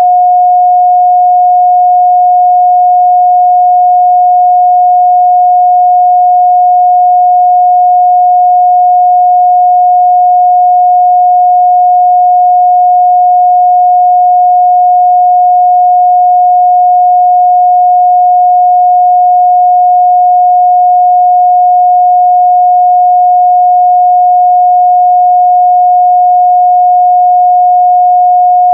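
A steady, loud 721 Hz sine-wave test tone: one pure unchanging pitch, used to check the midrange response of speakers and headphones.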